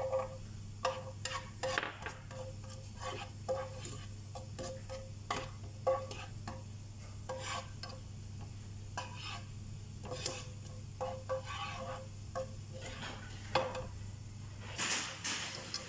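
Black slotted spatula stirring food in a metal wok, with irregular scrapes and taps against the pan and a light sizzle from the frying, over a steady low hum.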